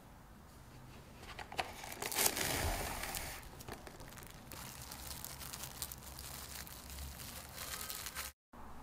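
Plastic cling wrap crinkling as it is stretched over a small glass jar and pressed around the rim. The rustling is loudest about two to three seconds in and cuts off abruptly near the end.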